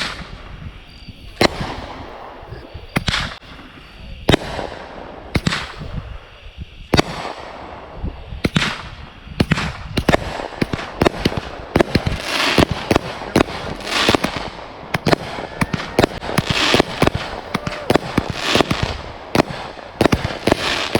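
Consumer fireworks going off: sharp bangs about one every second and a half at first, then from about eight seconds in a dense barrage of rapid bangs mixed with hissing crackle.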